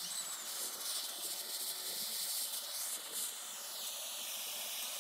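Gas torch hissing steadily as it heats a heater-core nipple for sweat soldering; the hiss shifts slightly lower in pitch about three and a half seconds in.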